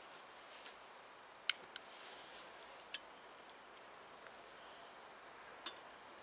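A few sharp metal clicks from handling a steel camping kettle on a gas canister stove: two close together about a second and a half in, another near three seconds, and one near the end as the kettle is set down on the burner.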